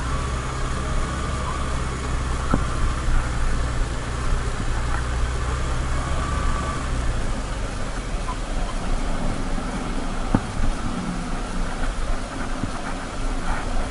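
Motorcycle engine running at a low, steady note on a gravel downhill, over constant wind and road noise, with scattered clicks and knocks. The engine note fades about halfway through.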